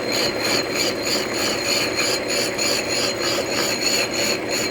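Milling machine end mill taking a heavy cut in metal, with a steady cutting noise and a rhythmic pulse about four times a second.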